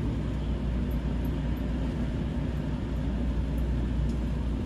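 Steady low hum and rumble inside the cab of a Seibu 20000 series electric train standing at a station platform.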